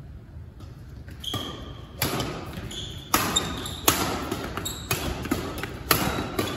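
Badminton rackets striking a shuttlecock in a doubles rally: sharp hits about once a second after a quiet first second, each echoing in a large hall.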